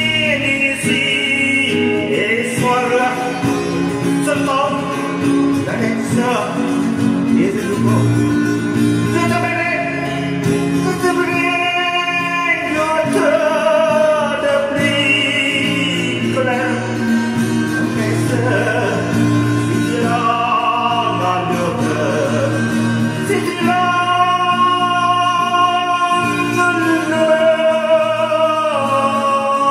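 A man singing a song in Vietnamese to acoustic guitar accompaniment.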